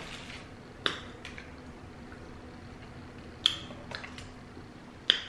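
Close-miked mouth sounds of someone chewing a fried chicken sandwich: a handful of sharp, wet smacks and clicks, spaced irregularly.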